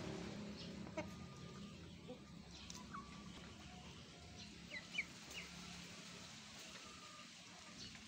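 Domestic chickens clucking softly and making short calls while feeding, faint, with a couple of sharp taps, one about a second in and one about five seconds in.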